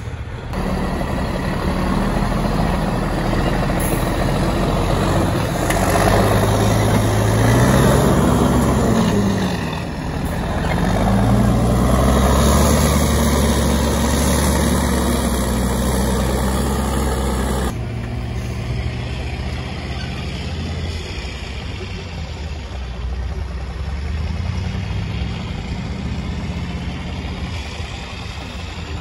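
MAN TGS 8x8 trial truck's diesel engine working hard off-road, its pitch rising and falling as it is revved through the section. About two-thirds of the way in it drops abruptly to a quieter, steadier run.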